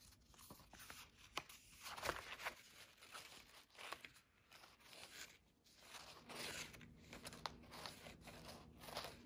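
Faint rustling and soft flicks of paper as pages of a spiral-bound printed workbook are turned by hand, one page after another.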